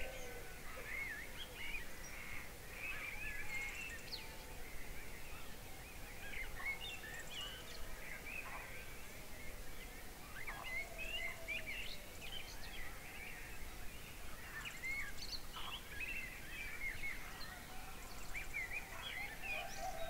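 Dawn chorus of many small birds chirping and whistling in a dense, overlapping mix of short calls. A lower, drawn-out call sounds just at the start and again near the end.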